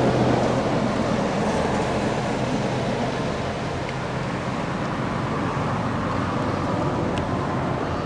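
Steady rumble of vehicle noise with a low engine-like hum that fades out about three and a half seconds in.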